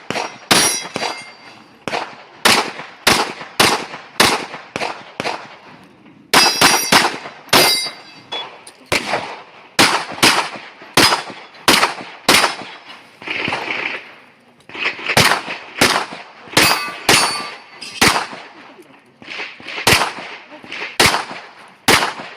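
A rapid string of gunshots, about thirty, fired in quick pairs and runs with short pauses, many followed by the ringing of hit steel targets.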